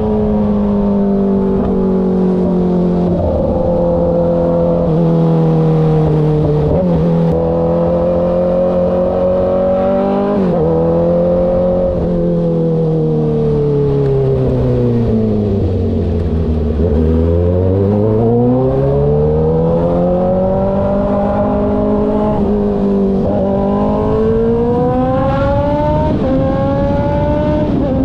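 2013 Kawasaki ZX-6R 636's inline-four engine running under way on a ride. Its pitch eases down to a low point a little past halfway, then climbs steadily again, with brief breaks in the pitch along the way.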